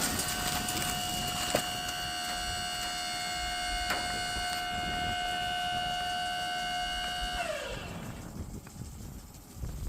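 Gas-powered woodchipper running with no branch in it, giving a steady whine. About seven and a half seconds in it is shut off, and the whine falls in pitch and fades as the machine spins down.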